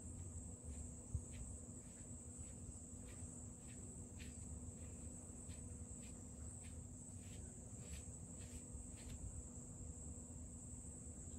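Quiet room sound: a faint steady high-pitched chirring like crickets, a low hum, and soft scattered ticks and rustles as a hand pats and strokes a sleeping baby monkey, with one soft thump about a second in.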